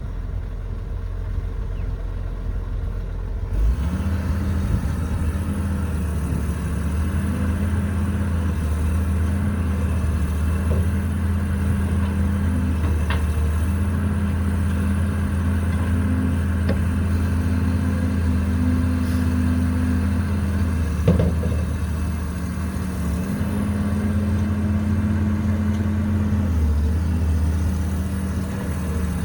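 Caterpillar 312B hydraulic excavator's diesel engine running; about four seconds in it steps up from a low idle to a higher steady speed, its note shifting a little as it works, with a couple of brief knocks.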